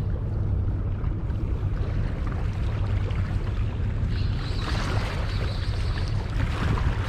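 Wind buffeting the microphone in a steady low rumble, with sea noise beneath. From about four seconds in, a brighter hiss joins.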